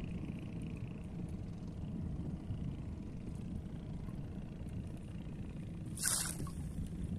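Low, steady rumble of wind buffeting the microphone, with one short, sharp hiss about six seconds in.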